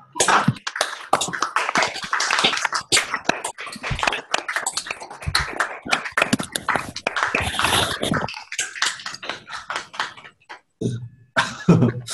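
Applause: several people clapping over an online-call connection. It is dense for about eight seconds, then thins out to scattered claps.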